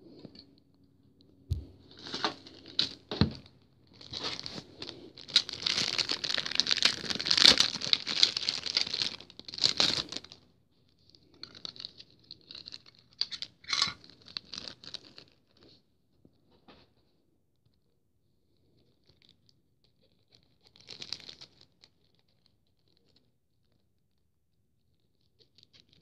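Clear plastic packaging bag crinkling and tearing as it is handled and pulled off a plastic model airliner, in several bursts, the longest and loudest in the first ten seconds. Two light knocks in the first few seconds.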